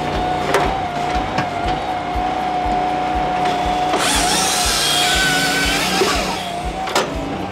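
Brute Force 14-24 firewood processor running with a steady whine, with sharp cracks of wood splitting, once just after the start and again near the end. Midway a loud rush of hissing, crackling noise lasts about two seconds. Background music with a steady beat runs underneath.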